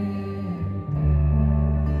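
Live worship band playing a slow instrumental passage between sung lines: sustained chords ring over the bass, which moves to a new, fuller low note about a second in.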